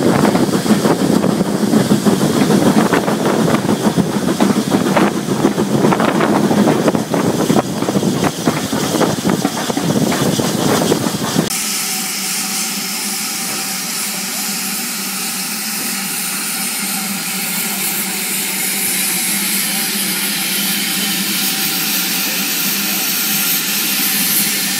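Steam locomotive running, heard from on board beside the boiler: dense irregular clatter and rattle with wind on the microphone. About halfway through it cuts abruptly to a steady hiss of steam escaping from standing BR Standard Class 4 tank engine 80080, growing slightly louder toward the end.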